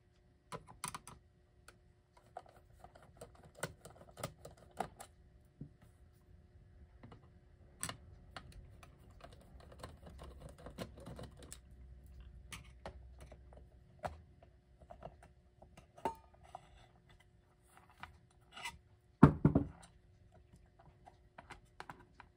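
Scattered small clicks, taps and scrapes of a screwdriver and loose parts as the screws holding the bottom plate of a clock's base are undone and the plate comes off, with one louder thump near the end.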